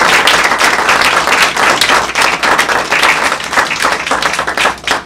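Audience applauding, many people clapping together, the applause tapering off near the end.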